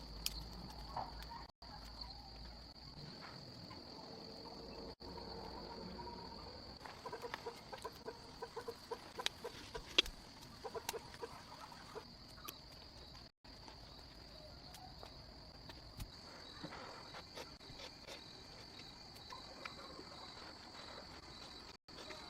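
Rainforest insects making a steady high-pitched drone, with scattered clicks and knocks and a run of short, quick low sounds in the middle.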